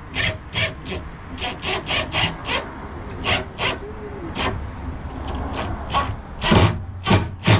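Handsaw cutting wood: a run of short, uneven strokes, about two to three a second, the loudest near the end.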